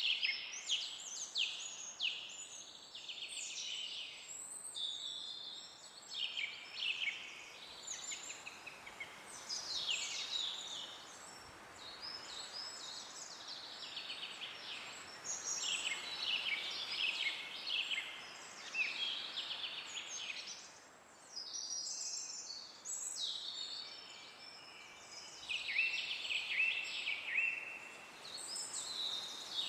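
Several songbirds singing and calling over one another in quick, overlapping phrases, over a soft steady background hiss of wind.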